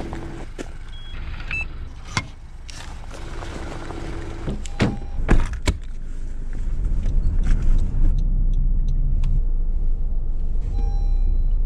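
Several sharp clicks and knocks as someone gets into a car and handles things inside it, over the low steady rumble of the car running, which grows louder about halfway through.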